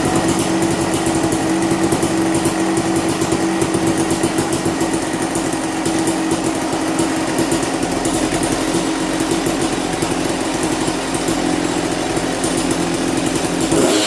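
1998 Kawasaki KX250's single-cylinder two-stroke engine running steadily, its fast rapid firing at an even pitch, now starting and running after the no-start repair.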